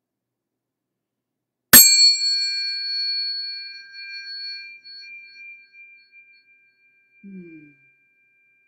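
Metal tuning fork struck once, with a sharp bright strike about two seconds in, then a steady high ringing in several pitches that slowly fades and is still sounding at the end.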